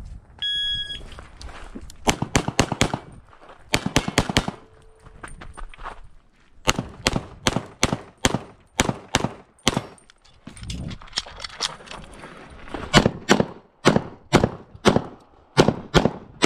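An electronic shot timer's start beep, then rapid pistol fire in quick pairs and strings. Each group of shots is broken by a short pause before the next.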